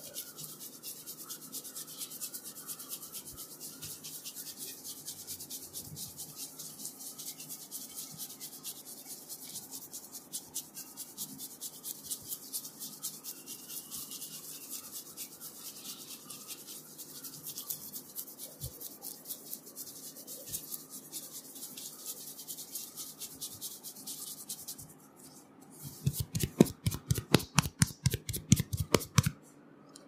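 Fingertips rubbing and scrunching through thick curly hair on the scalp in a head massage, a close, dense crackling rustle. Near the end comes a rapid run of loud sharp snaps, about six a second, lasting around three seconds.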